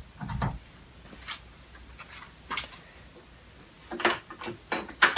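Light metallic clicks and clunks as a gear lever on the headstock of an Atlas lathe is worked by hand, the lathe not running; a single low knock comes near the start and the clicks cluster near the end.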